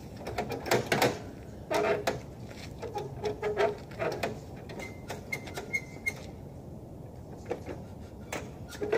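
Knocks and clatter of a ride-on mower being handled at the back of an SUV, with several sharp knocks in the first half. A few short high peeps come about five to six seconds in.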